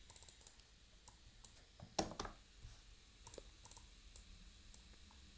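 Faint, scattered clicks of a computer keyboard and mouse as a few letters are deleted and retyped, the loudest click about two seconds in.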